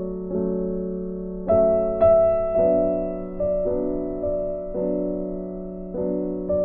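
Background piano music: slow, gentle notes and chords, each struck and left to ring and fade.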